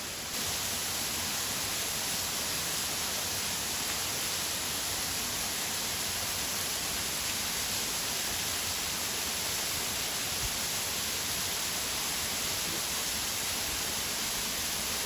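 Waterfall with a drop of about 23 m, a steady even rush of falling water.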